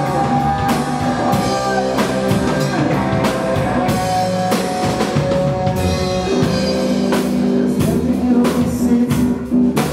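Live rock band playing an instrumental passage between verses: electric guitar, bass guitar and drum kit, loud and continuous.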